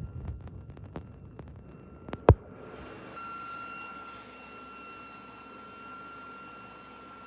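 3D printer: a run of light, even clicks, a single sharp knock about two seconds in, then a steady high whine over a fan-like hiss as the machine runs.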